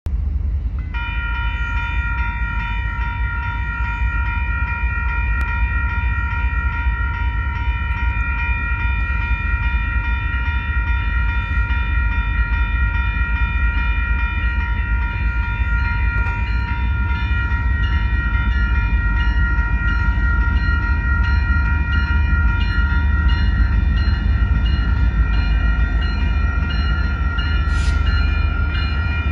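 Railroad crossing bell starting up about a second in and ringing steadily as the crossing activates, over a low rumble that grows a little louder toward the end as the freight train's locomotives approach.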